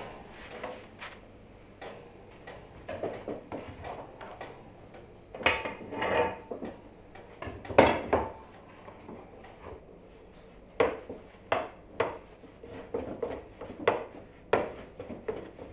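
Intermittent kitchen clatter of metal trays and pans, loudest about eight seconds in, followed by a rolling pin knocking and rolling over dough on a wooden board.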